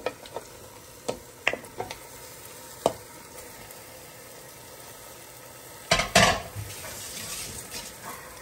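Pieces of beef trotter dropped by hand into a pressure cooker of hot, sizzling spice paste. There is a series of short knocks as they land in the first few seconds, over a steady sizzle. A louder clatter in the pot comes about six seconds in, and after it the sizzling comes up for a moment.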